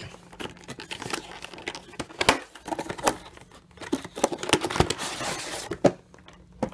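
A phone's cardboard retail box being opened by hand: the inner cardboard tray scrapes and slides out of its sleeve, with crinkling and light taps and a longer stretch of rustling scrape about four to six seconds in.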